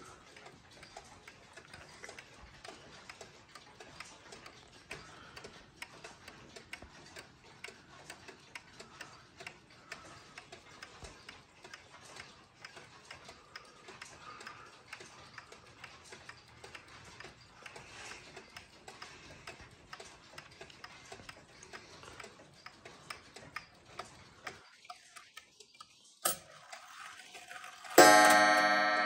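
Kassel 31-day pendulum wall clock's exposed movement ticking steadily. Shortly before the end there is a sharp click, and then the strike hammer hits the coil gong once. The gong rings loudly and slowly dies away.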